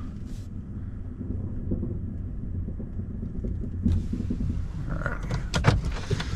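Van engine and road rumble heard from inside the cab while driving, steady and low, with a few knocks and rattles near the end.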